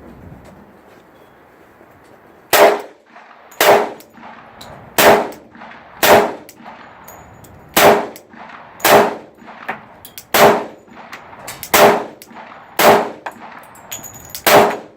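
Glock 29 10mm pistol firing ten shots at a steady pace of about one a second, starting a couple of seconds in, each with a short ringing tail. Every round fires with no light primer strike.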